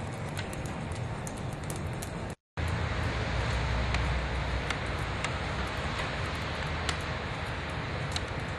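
City street ambience: a steady low rumble of traffic with scattered sharp ticks. The sound cuts out briefly about two and a half seconds in.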